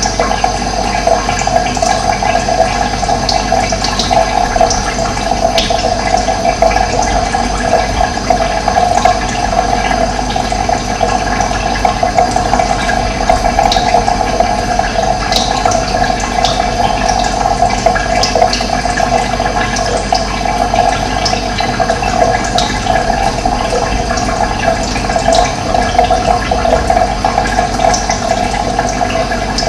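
Steady rush of running water, with brief high bird chirps scattered through it.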